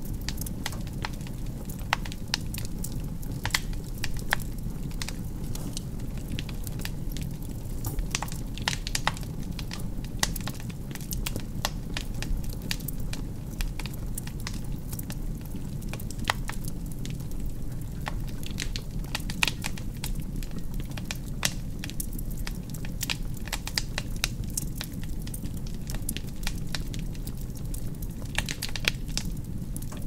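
Wood fire burning in a fireplace: a steady low rush of flame under frequent irregular sharp crackles and pops from the burning logs.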